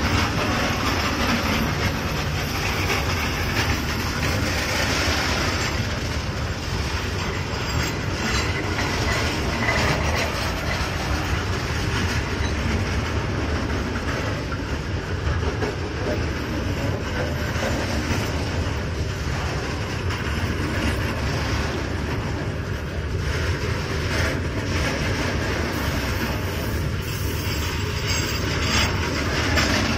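Freight train of covered goods wagons rolling past, a steady noise of steel wheels running on the rails with repeated clacks as the wheels cross the rail joints.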